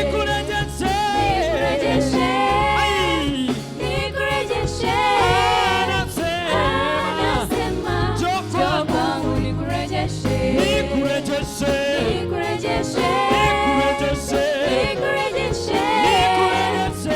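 Gospel praise music: a choir of voices singing a Swahili worship song over a steady bass line and band accompaniment.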